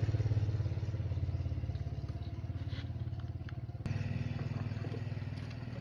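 A small engine running steadily with a fast, even pulse, growing a little quieter, then stepping abruptly louder about four seconds in.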